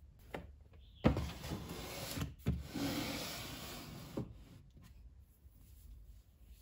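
White plastic storage bin set down on a bookcase shelf with a knock and slid in, a scraping rub about three seconds long with two more knocks as it is pushed into place.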